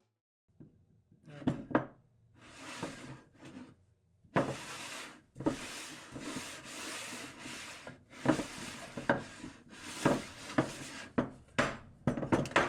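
Wood rubbing and scraping in a series of short strokes, with several sharp wooden knocks and clicks among them.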